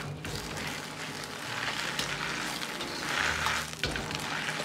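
Shanghai bok choy sizzling in a hot wok over high heat while a metal ladle tosses and scrapes it, with short clinks of metal on the wok.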